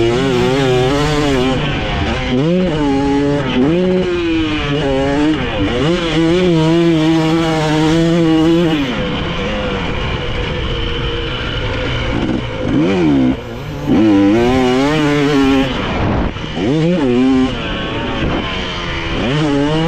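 Motocross dirt bike engine being ridden hard around a track, its pitch climbing and dropping over and over as the throttle is opened and chopped, with one longer steady pull in the middle. Wind noise runs underneath.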